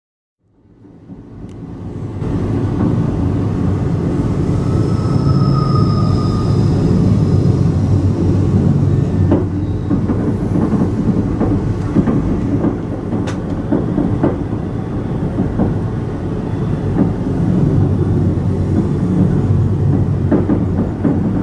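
Passenger railcar riding on the rails, heard from inside the car: a steady low rumble with scattered clicks and knocks, fading in over the first two seconds. A brief high squeal comes about five seconds in.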